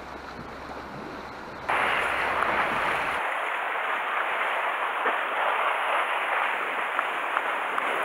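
Sea surf surging and washing against the rocks, a steady rushing noise that jumps abruptly louder about two seconds in.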